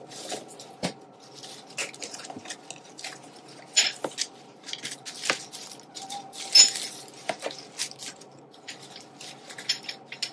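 Artificial autumn leaves, fabric and floral stems rustling and crinkling as they are rummaged through and lifted out of a plastic storage bin, with irregular light clicks and taps. The loudest are about four, five and six and a half seconds in.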